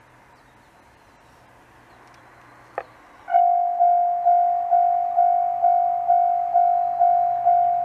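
Faint outdoor hum, then a single click about three seconds in, and a railway level-crossing warning bell starts up, ringing a steady electronic ding about twice a second: the crossing warning for an approaching train.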